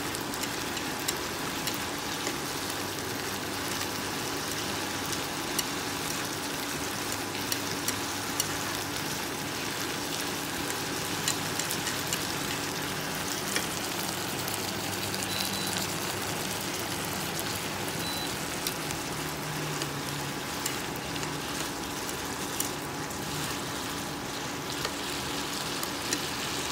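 Shredded chayote and garlic sizzling as they are stir-fried in a pan on an induction cooktop: a steady frying hiss with frequent small pops of spattering oil and a faint steady hum underneath.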